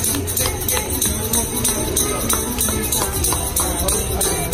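A tambourine jingling in a quick rhythm, with hand clapping and voices singing along.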